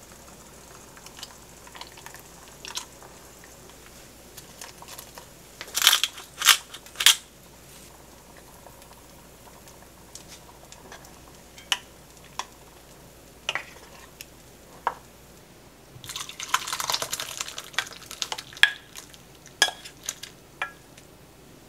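Cooking sounds around a stainless steel pot of egg soup: scattered sharp clinks and taps of utensils and cookware, three loud ones close together about six seconds in, with a short stretch of liquid noise about three-quarters of the way through.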